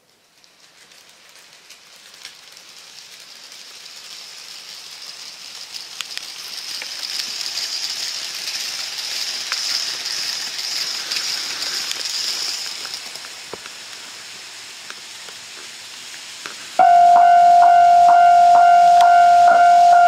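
N-gauge model train running along the track, a soft hiss of wheels and motor that builds, peaks about ten seconds in as it passes close, then fades. About seventeen seconds in, a loud Japanese level-crossing warning bell starts suddenly, played from a phone app: a steady electronic ringing tone that pulses a little under twice a second.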